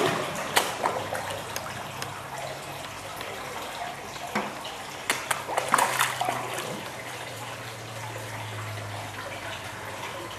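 Koi splashing and sucking at the water's surface as they feed on bread, in sharp irregular splashes that are heaviest about five to six seconds in, over a steady wash of moving water and a low hum.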